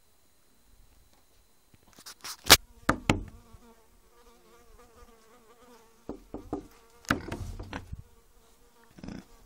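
An insect buzzing for about three seconds with a wavering pitch, between a few sharp knocks and rustles.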